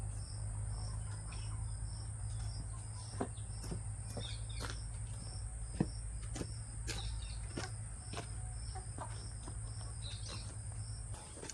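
Single-phase 1.5 HP induction motor belt-driving an air compressor, running with a steady low hum on freshly greased bearings, which the owner hears as freer and quieter; it stops about a second before the end. Insects chirp steadily in the background, about three chirps a second.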